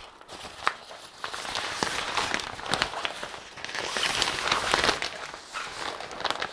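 Frosted plastic shower curtain liner rustling and crinkling as hands unfold and shake it out, with many sharp crackles; loudest about four to five seconds in.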